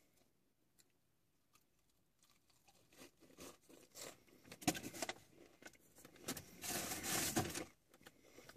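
Paper fast-food bag and wrapper rustling and crinkling in short bursts as food is taken out, with a longer, louder crinkle near the end.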